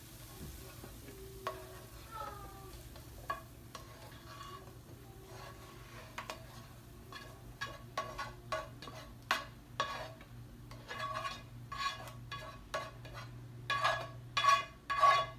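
A utensil scraping and knocking against a pan as cooked vegetables are scooped out into a food processor bowl, in irregular strokes that come closer together and louder near the end.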